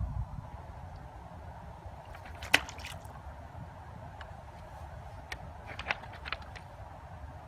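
Steady low rumble and hiss of outdoor ambience, broken by a few sharp clicks: one loud click about two and a half seconds in, then several smaller ones close together near the six-second mark.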